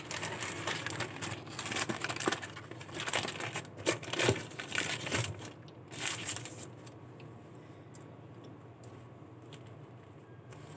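Burger wrapper crinkling and rustling as it is torn open and unwrapped, with sharp crackles; the crinkling stops about six and a half seconds in, leaving a much quieter stretch.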